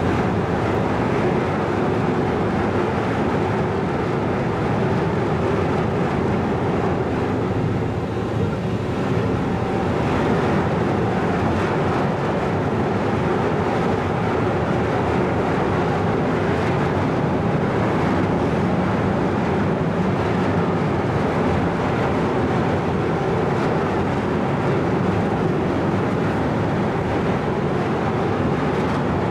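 Steady drone of a moored car ferry's engines and machinery running, with a few faint steady low tones in an even rumble.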